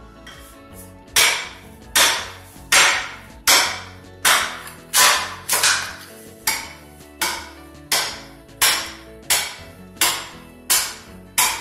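Small pick mattock (talacho) chopping into hardwood floorboards to break them up for removal: a steady run of sharp wooden strikes, about one every 0.7 seconds, starting about a second in.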